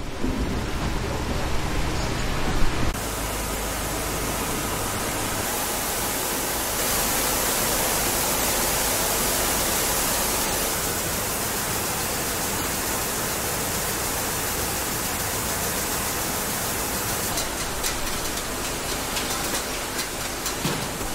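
Rice-milling machinery running, with milled rice streaming through it: a steady, dense rush of noise. Light rattling ticks come in near the end.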